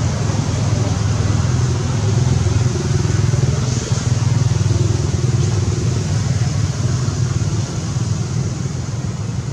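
Steady low engine drone of a motor vehicle running, holding an even pitch throughout.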